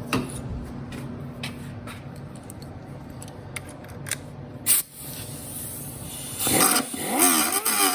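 Low steady hum with scattered light clicks and knocks of handling work, a single sharp loud sound just before five seconds, then guitar music coming in near the end.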